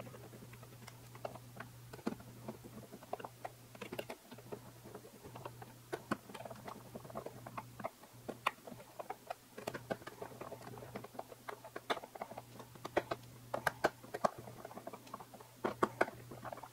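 Hand screwdriver driving coarse-threaded Phillips screws home into a model plane's landing-gear plate: irregular small clicks, ticks and scrapes as the screws are cinched down, over a faint steady hum.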